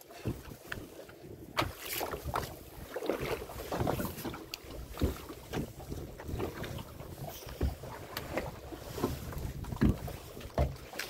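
Sounds aboard a small fishing boat at sea: wind buffeting the microphone, water sloshing against the hull and irregular knocks and thuds on the boat.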